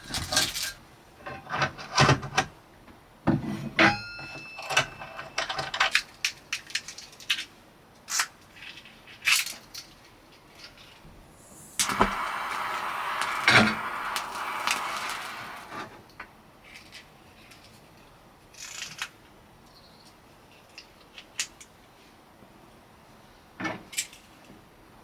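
Small objects being handled: scattered clicks and knocks, a metal clink that rings briefly about four seconds in, and a few seconds of steady rushing noise near the middle that stops abruptly.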